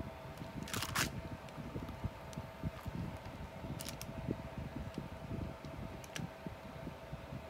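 Small handling noises of resin work with a metal palette knife and silicone cups and molds: a brief rustling scrape about a second in, then a few light clicks, over a faint steady hum.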